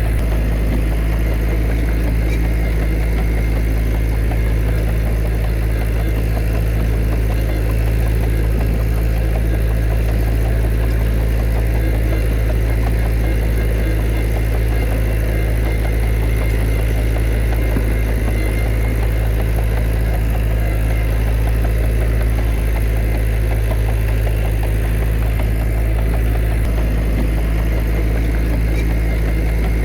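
Heavy diesel engine of earthmoving machinery running steadily: a constant low drone that holds the same pitch and level throughout.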